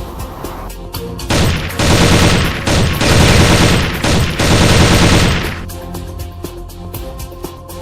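Several long bursts of rapid automatic gunfire over background music, the last burst ending about five and a half seconds in, leaving the music with rapid ticks.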